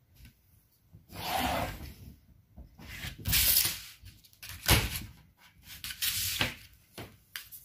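Brown pattern paper rustling and a long curved tailor's ruler sliding over it and being shifted, in several short bursts, with a sharp knock a little past halfway.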